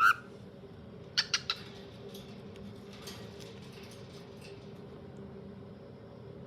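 Pet birds calling: a quick run of three short, sharp chirps a little over a second in, then a few faint scattered chirps, over a steady low hum.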